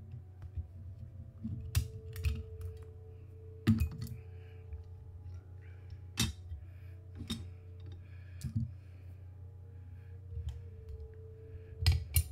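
Soft background music under a steady low hum, with scattered sharp clicks and taps of small metal parts and hand tools handled while an airsoft gearbox is taken apart. The loudest click comes near the end.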